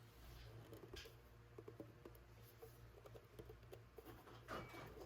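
Near silence: room tone with a low steady hum and scattered faint small clicks and taps.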